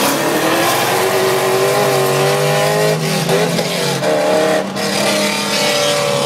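Pontiac GTO's LS2 V8 with headers and a custom exhaust at full throttle in second gear, loud and rising in pitch, with the rear tyres spinning. The note dips briefly about three seconds in and again near five seconds, then holds.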